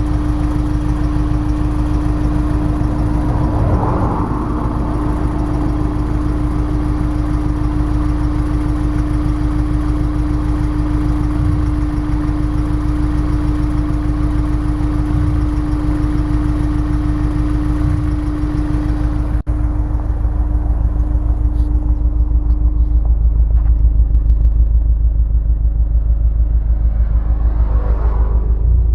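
Honda S2000's four-cylinder engine running with a misfire. A steady hum sits over the engine note and fades out about twenty seconds in, after which the low engine sound grows slightly louder.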